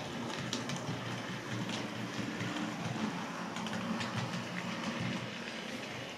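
Model diesel locomotive running on its track: a steady electric motor hum with wheels clicking over the rail joints as it passes and heads off toward the incline.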